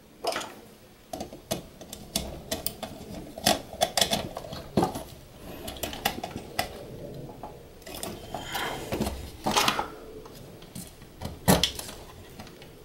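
Irregular clicks, taps and light rattles of hand work on a switch panel: a wire jumper being fitted and its terminal screws tightened with a small screwdriver on a push-button switch contact block in a metal control box.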